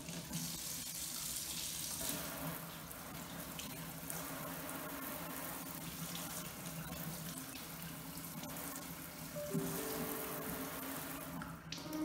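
Kitchen sink tap running, a steady splashing of water into the sink for bathing a parrot.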